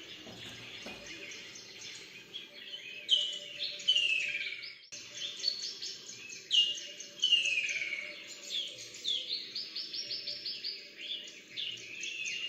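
Birdsong played back through a TV's speakers as a sound test: phrases of rapid chirps and falling whistled notes, repeated every second or two.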